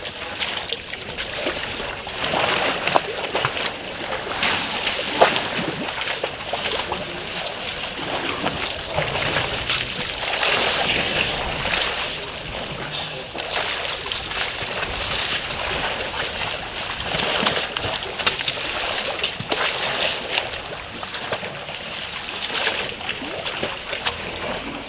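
Water splashing, sloshing and spattering as African elephants wade, drink and spray water in a shallow waterhole, in many short irregular splashes.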